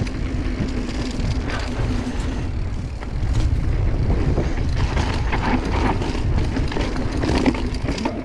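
Mountain bike rolling fast down dirt singletrack: tyres on the trail and the bike clattering over bumps and roots, with wind rumbling on the microphone.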